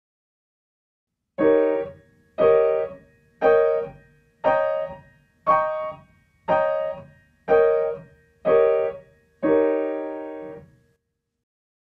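Piano playing the E-flat dominant seventh chord (V7 of A-flat major) in the right hand as solid, blocked chords, about one a second: nine chords climbing through the inversions and back down, the last held longer.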